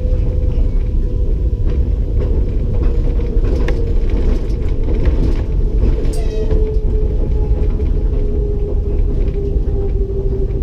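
Cab interior of an EP20 electric locomotive running at speed: a heavy, steady rumble of wheels on rail with a constant whine that sinks slightly in pitch as the train slows on its approach. Scattered sharp clicks and knocks come from the track.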